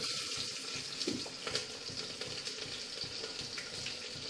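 Chopped shallots and curry leaves sizzling in hot tempering oil with spluttered mustard seeds and dal. A steady hiss starts at once as they go in, with a few small crackles.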